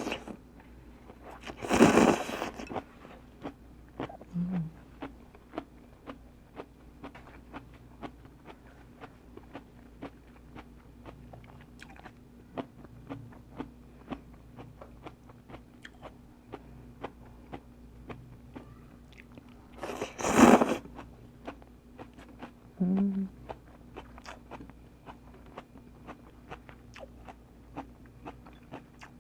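Close-miked chewing and crunching of a mouthful of pho noodles with crisp bean sprouts: a steady run of small wet clicks, broken twice by a loud, noisy burst about a second long.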